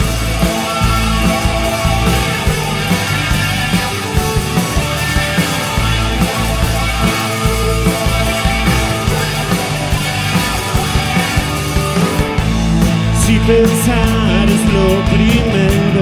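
A rock band playing live: electric guitar, drum kit and keyboards, the drums keeping a steady beat. The cymbals come in brighter about three-quarters of the way through.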